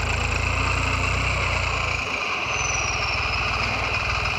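Bulldozer engine running steadily, with a brief dip in its rumble about halfway through.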